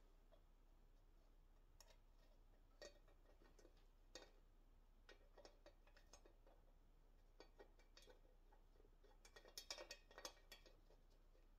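Near silence with faint, scattered metallic clicks and ticks of valve cover bolts being threaded in by hand, a small cluster of them near the end.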